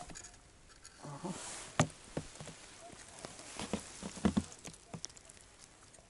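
Light clicks, taps and clothing rustle as a small perch is lifted out of an ice-fishing hole and handled in the hand; the sharpest tap comes a little under two seconds in, with a cluster of taps around four seconds.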